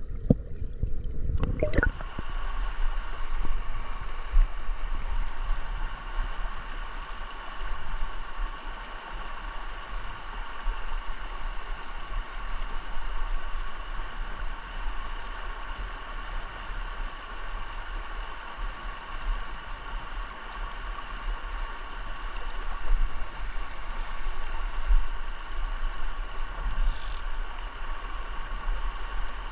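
Muffled underwater gurgling and bubbling for about the first two seconds, then the steady rush of a shallow, rocky river running over stones.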